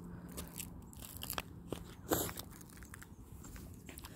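Thin ice on a frozen road surface crunching and cracking under shoes: a few small crackles and one louder crunch about two seconds in.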